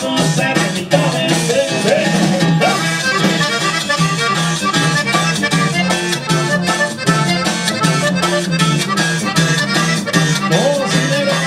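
A live band playing an upbeat Latin song with a steady beat and a bass line under a melodic lead.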